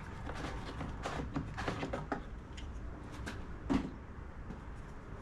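Scattered light clicks and clunks of equipment being handled while a hand fuel-transfer pump is set up at a fuel tank, with one louder knock a little before four seconds in.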